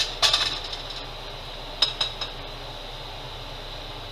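Metal cookware and utensils clinking and clattering at the stove: a few sharp clinks about a quarter second in and a quick cluster of three near two seconds, over a steady low hum.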